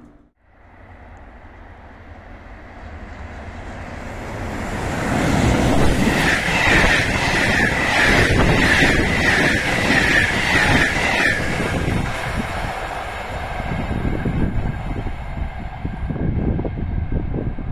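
Passenger train of Corail coaches passing through a station. A rumble rises as it comes in, then for about five seconds there is loud wheel noise with a rhythmic clickety-clack and a high ringing whine, followed by a lower rumble as it goes away.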